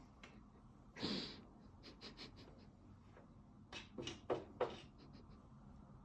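Faint scratching and tapping of a cat pawing at a treadmill to fish out a toy. There are scattered light clicks, a sharper flurry of scrapes about four seconds in, and a short sniff-like puff about a second in.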